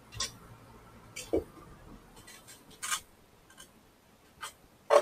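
Handling noises as a Wi-Fi router and its cables are moved into place: about half a dozen irregular short clicks and knocks, with light rustling between them.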